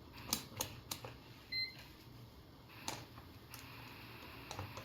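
Digital multimeter giving short beeps, once about a second and a half in and again at the end, among a few sharp clicks and taps, as a repaired power supply board is checked after a part was replaced.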